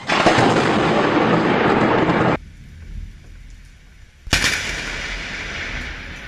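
Thunder from close lightning strikes: a loud crackling burst that stops abruptly after about two seconds, then a sharp crack about four seconds in followed by a rumble that slowly dies away.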